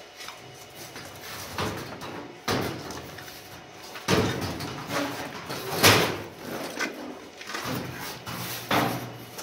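Thin sheet-metal top panel of a Newmac wood stove being lifted and shifted around the flue pipe: scraping metal with several sharp clunks, the loudest about six seconds in.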